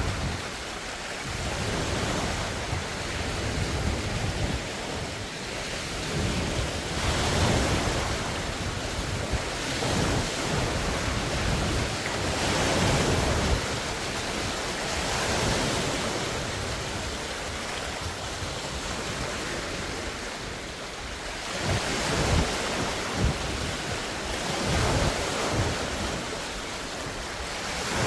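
Large wind-driven waves breaking and splashing on a lake shore, in a steady wash that swells and ebbs every few seconds. Gusty wind buffets the microphone with low rumbles.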